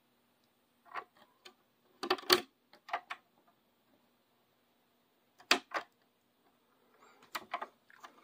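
Sharp plastic clicks and clunks from the piano-key transport buttons of a Jensen cassette deck being pressed and released, in several separate clusters, the loudest about two seconds in.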